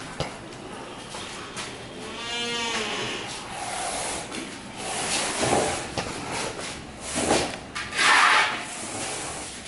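An animal bleats once, a wavering call about two seconds in. Then come rough scraping and rubbing bursts, the loudest near the end, as wet plaster of Paris is pressed and smeared along a ceiling cornice by hand.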